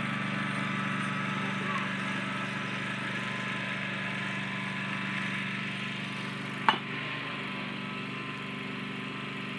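A baseball bat strikes a pitched ball once with a single sharp crack about two-thirds of the way through, over a steady background hum.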